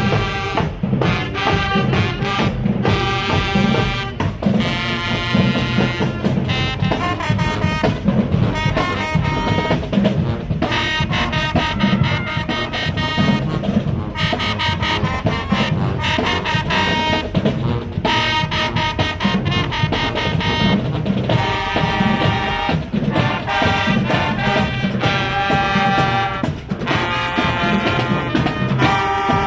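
High school marching band playing a tune: brass horns in loud phrases over marching drums.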